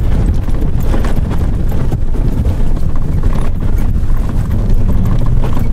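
Vehicle driving fast over rough ground, heard inside the cab: a loud low rumble of engine and tyres with constant rattling and knocking over the bumps.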